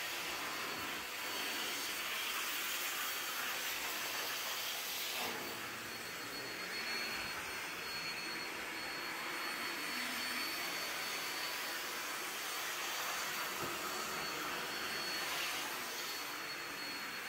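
Hoover commercial backpack vacuum running steadily: a continuous rush of air with a thin high whine from the motor, its sound shifting briefly about five seconds in.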